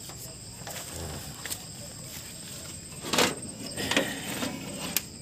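Scattered metal clicks and knocks from handbrake cable and brake parts being worked by hand, with a louder clatter about three seconds in. Crickets chirp steadily behind.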